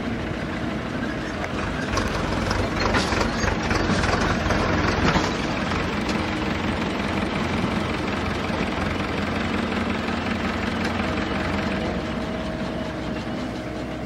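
JCB 3DX backhoe loader's diesel engine running under hydraulic load while it digs and loads soil into a tractor trolley. It works harder and louder from about two to five seconds in, then settles back to a steady drone.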